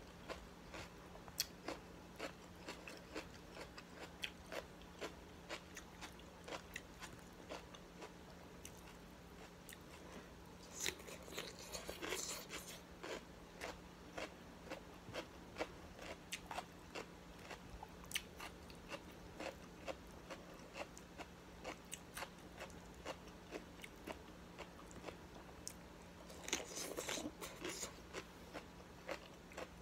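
Close-up chewing and crunching of raw vegetables, a run of quick mouth clicks and crunches with two longer bouts of crunching, one about a third of the way in and one near the end.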